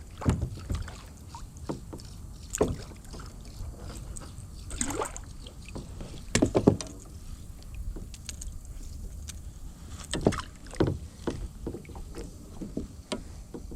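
Scattered knocks and bumps on a kayak, irregular and a few seconds apart, the loudest about two-thirds of the way through, over a low steady rumble.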